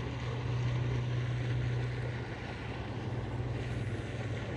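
A steady low drone like a distant motor, over a light outdoor wind hiss.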